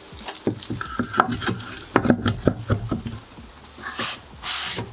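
Wooden chopping board knocking against the sink as it is fitted into place: a run of light knocks, then a couple of brief scrapes near the end.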